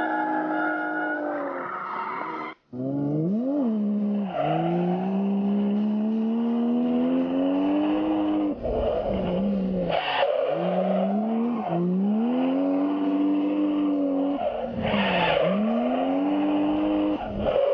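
Drift car engine revving hard through slides, its pitch climbing, falling back and climbing again several times, over tyres skidding and squealing. There is a brief, abrupt dropout about two and a half seconds in.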